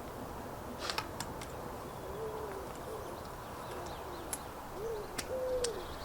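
A bird's low cooing calls, several in a row through the second half, with a few sharp clicks.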